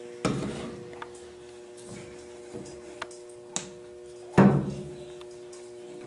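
A ramrod being run down a flintlock muzzleloader barrel with a dry patch, knocking against the metal. There are two hard knocks with a short ring after each, one just after the start and a louder one about four and a half seconds in, with a few light clicks between.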